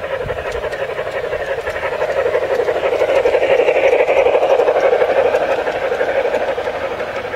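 G-scale (LGB) model train running past: the locomotive's motor and gears humming and the wheels rolling and clattering on the track. It grows louder to a peak about halfway through, then fades as the coaches go by.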